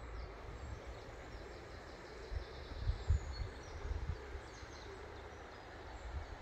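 Wind gusting on the microphone, strongest about three seconds in, with faint bird chirps.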